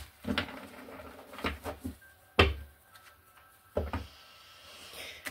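Tarot cards being handled on a table: a handful of sharp taps and knocks as the deck and cards are set down and moved, the loudest about two and a half seconds in.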